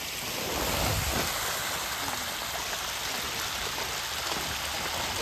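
Steady rushing hiss of water, with a few low thumps about a second in.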